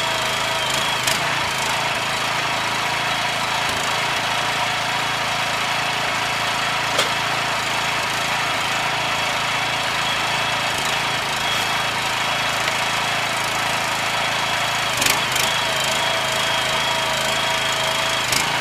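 A woodworking machine running steadily with a constant whine over a noisy hum, briefly dipping in pitch about a second in and again near the end, with a few sharp clicks.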